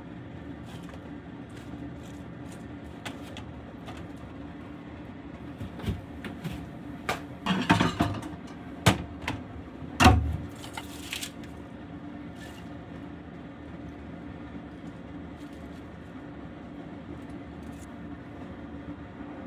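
Kitchenware being handled and set down: a stainless steel bowl and a plate knocking and clattering on the counter and stovetop, a cluster of knocks in the middle with the loudest about ten seconds in. A steady low hum runs underneath.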